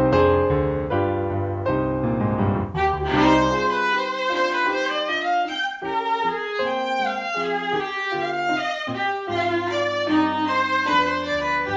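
Instrumental music: piano playing, joined about three seconds in by a violin carrying the melody.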